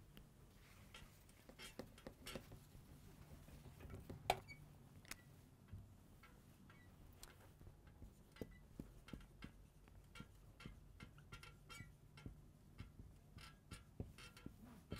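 Faint whiteboard sounds: a duster wiping the board, then a marker pen writing, with many scattered soft clicks and short squeaky strokes. The loudest is a single click about four seconds in.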